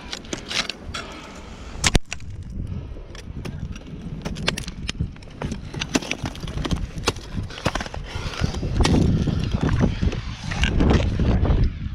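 Ice axes and crampons striking waterfall ice: a run of irregular sharp knocks and chops as the climber swings and kicks in. A low rumble of movement comes in over the second half.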